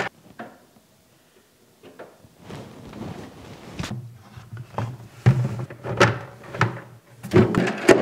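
Near silence for about two seconds, then a run of knocks and clicks of a screwdriver and hard plastic parts inside a refrigerator compartment, as the freezer-compartment door catch is unscrewed and fitted on the other side.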